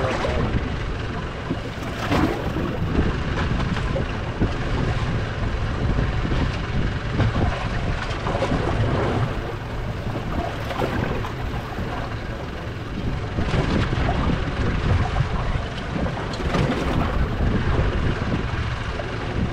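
Fishing boat under way, its engines running under steady rumbling wind noise on the microphone, with irregular surges in loudness.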